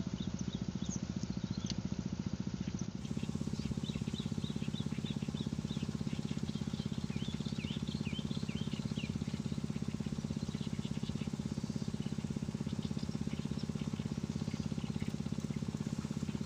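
A small engine running steadily at an even rapid beat, with birds chirping now and then.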